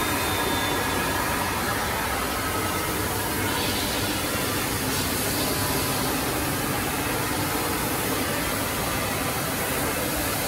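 Woodmaster four-axis, 16-spindle CNC router milling wooden chair legs: a steady, even noise with a faint whine.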